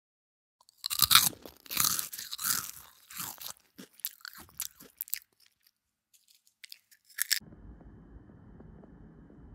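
Crunchy food being bitten and chewed close to the microphone: a run of loud, crisp crunches for about four seconds, then a few softer clicks. About seven seconds in it switches abruptly to a faint, steady low rumble.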